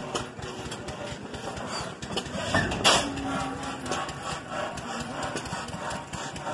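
Old stationary engine running steadily, with a rapid irregular knocking, and one louder short burst about three seconds in.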